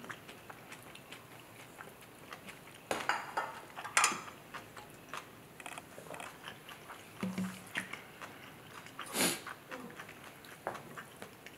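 A person chewing a mouthful of black bean instant noodles: soft wet mouth clicks and smacks, with a few louder short sounds about three, four and nine seconds in.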